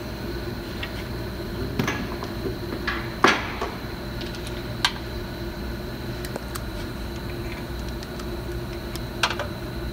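Scattered clicks and metallic clanks of hand tools, the loudest clank about three seconds in, over a steady background hum.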